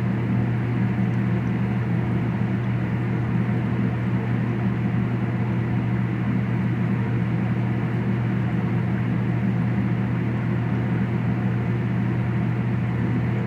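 Steady low mechanical hum that does not change, the running noise of kitchen machinery, with no sharp sounds over it.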